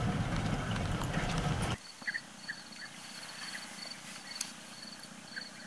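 Car rolling slowly over a rough dirt track, a low rumble with irregular bumps, cutting off abruptly after under two seconds. Then a quieter stretch with a few faint, short calls of European bee-eaters and a faint, high, evenly repeating tone.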